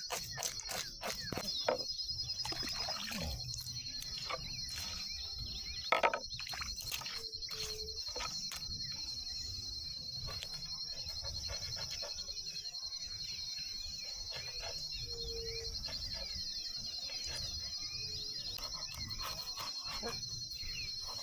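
Insects chirring: a steady, high, finely pulsing buzz, with scattered clicks and a few short low calls.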